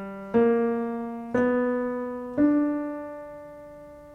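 Piano keys struck three times about a second apart, each note or chord left to ring and fade, the last held longest: a C major chord with its added flat third (blue note) being demonstrated.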